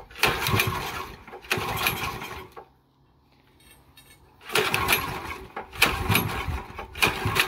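Honda GX340 single-cylinder four-stroke engine being pull-started with its recoil rope, cranking over in two quick pulls of about a second each, then, after a short pause, a longer spell of cranking near the end. These are first start attempts after its carburettor was cleaned of old fuel varnish and a plugged jet.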